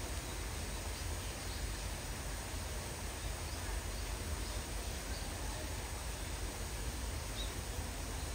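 Steady outdoor background hiss with a low rumble, and a few faint, short, high bird chirps scattered through it.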